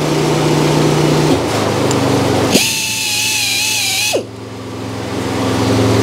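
Air-powered saw-tooth sharpener clamped to an inserted-tooth circular sawmill blade, its small grinder starting with a sudden high whine about two and a half seconds in. It runs for about a second and a half as it grinds the underside of a steel tooth flat, then drops in pitch and stops. Underneath, an air compressor drones steadily.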